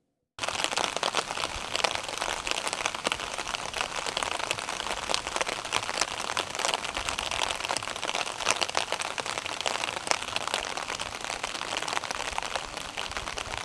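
Steady rain falling on wet pavement and vegetation, a dense patter of drops that cuts in suddenly right at the start.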